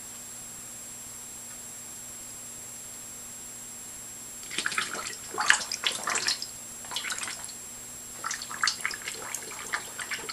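Dog blowing bubbles into a stainless steel water bowl, bubbling and splashing in two spells that begin about four seconds in, with a short break between them.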